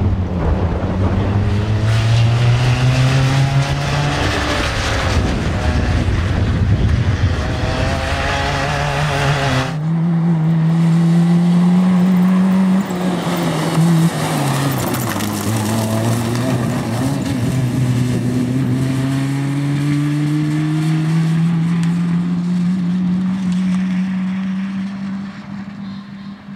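Nissan Micra rally car's four-cylinder engine revving hard under full acceleration. The note climbs steadily and drops back at each gear change, with an abrupt change to another pass about ten seconds in.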